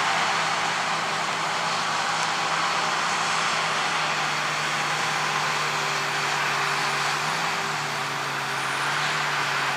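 Large farm harvest machine's diesel engine running steadily, a low hum under a loud rushing noise, its pitch stepping up slightly about three-quarters of the way through.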